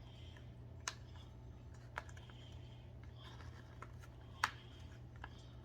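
Parts of a canister filter being handled and fitted into place: a few sharp clicks and light knocks, the loudest about four and a half seconds in, over a steady low hum.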